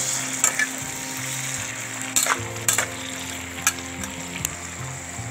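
Tofu cubes and canned fish sizzling in sauce in a frying pan while a metal spatula stirs them, clacking and scraping against the pan about five times.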